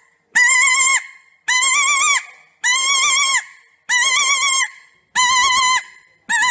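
Mouth-blown rabbit-squeal predator call for foxes, blown in a series of six loud squeals a little over a second apart. Each squeal wavers slightly in pitch and dies away quickly, imitating a rabbit in distress.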